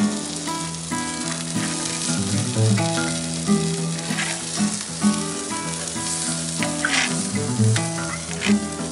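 Chicken thighs sizzling on the cast iron grate of a charcoal-fired Lodge Sportsman's Grill, with background music of held notes over a bass line.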